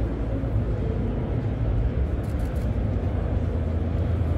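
Steady low rumble of a crowded exhibition hall: crowd murmur and hall noise.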